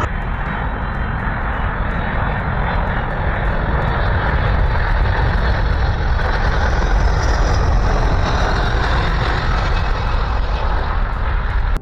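Four turbofan engines of a C-17 Globemaster III military transport, a steady, loud jet rumble as it flies low on approach and lands, growing a little louder midway.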